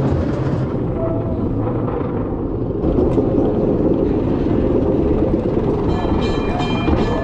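Bolliger & Mabillard dive coaster train running on its track, heard from the seat as a loud, steady rumble.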